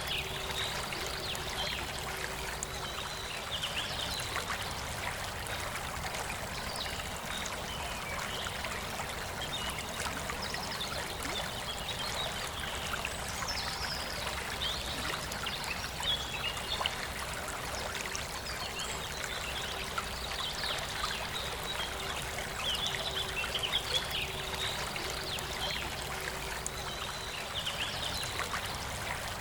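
Forest river flowing steadily, with birds chirping on and off over the water.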